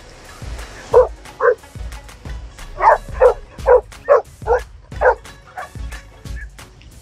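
A dog barking: two barks about a second in, then a quick run of six or seven barks at about two and a half a second.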